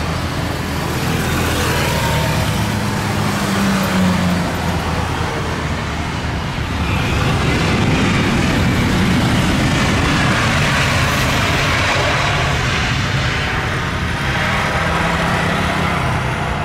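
Airbus A320 jet airliner landing, its turbofan engines making a loud steady rushing noise over a low hum. The noise grows louder about seven seconds in as the aircraft rolls along the runway.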